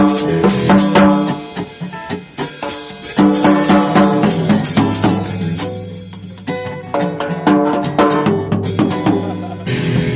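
Improvised instrumental garage rock: a drum kit with bass drum and snare beating under held chords.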